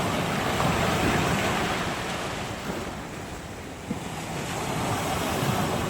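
Sea waves breaking and washing on the shore, the rush swelling, easing off and building again, with wind on the microphone.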